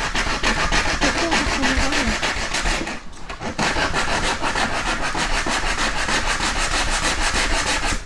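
A hand tool rasping back and forth along a wooden board in quick, even strokes, pausing briefly about three seconds in.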